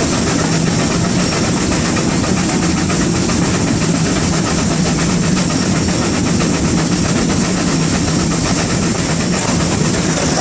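Steam locomotive 6619, a GWR 5600 class 0-6-2 tank engine, running along the line, heard from its footplate: a loud, steady mix of machinery and running noise.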